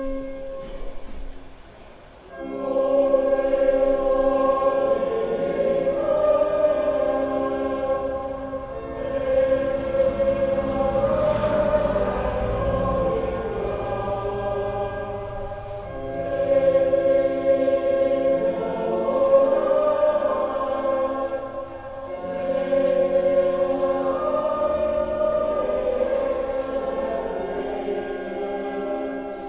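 A choir singing in long held phrases of about six to seven seconds each, with short pauses between them.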